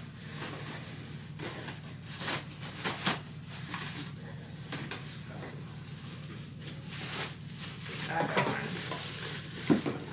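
Hard plastic stackable refrigerator organizing bins being handled: scattered light clicks and knocks with some rustling.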